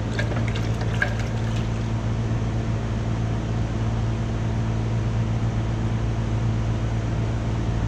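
A small cast aluminium part swished in a galvanized bucket of milky water, with a few light splashes and drips in the first second and a half, rinsing the investment off the casting. A steady low mechanical hum runs underneath.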